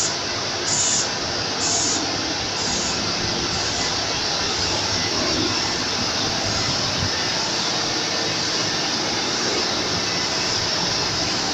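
Wastewater treatment plant pumps and machinery running with a loud, steady noise. For the first few seconds a short hiss repeats about once a second, then fades into the steady running.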